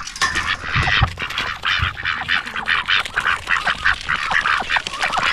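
A group of domestic ducks quacking rapidly and continuously, many short calls overlapping.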